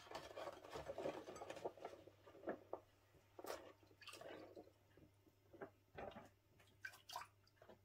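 Rice paper wrapper dipped into a glass bowl of warm water: faint splashing and dripping, with a few light clicks and rustles as the sheet is handled.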